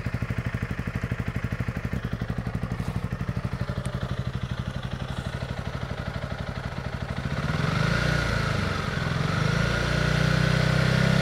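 Honda CRF300 Rally's single-cylinder four-stroke engine idling through its stock exhaust with an even pulse, then revved up about seven seconds in and held steady at about 4,500 rpm.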